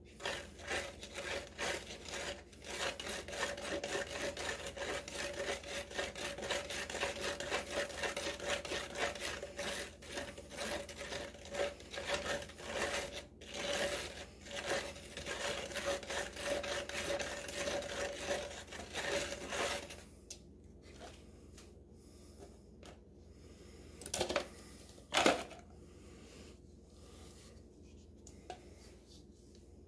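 Rhythmic scraping and rubbing from stirring a small batch of Cement All concrete mix by hand in a container, steady strokes for about twenty seconds that then stop. Two short knocks follow a few seconds later.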